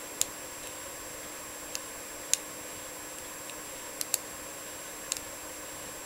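Light metallic clicks from a lock pick working the pin stacks of a Best padlock (D keyway) under tension, about six irregular clicks over a steady background hiss.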